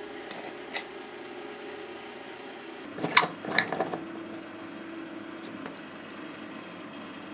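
Small metallic clicks and scrapes from rusty parts of an old lamp housing being handled and unscrewed: a single click about a second in, then a cluster of sharp clicks and scrapes around three to four seconds in, over a faint steady hum.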